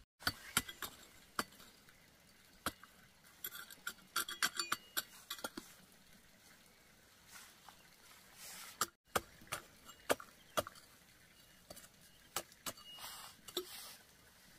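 Scattered sharp knocks and light clinks of kitchenware being handled, with a quick run of ringing clinks about four seconds in.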